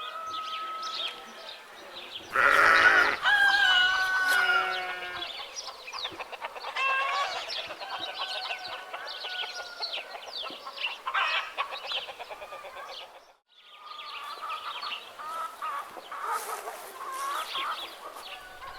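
Farmyard poultry and birds: a loud rooster-like crow about two seconds in, followed by more fowl calls, with small birds chirping throughout. There is a brief break about two-thirds of the way through.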